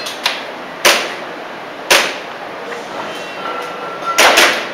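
Airsoft pistol shots: sharp cracks about a second apart, then a quicker run of louder pops and hits near the end.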